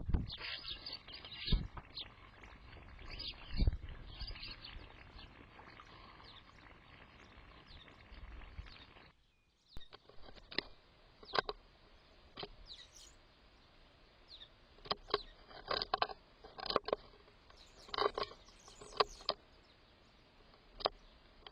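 Garden birds chirping in short, sharp calls. A few thumps come in the first few seconds, and there is a brief break about nine seconds in.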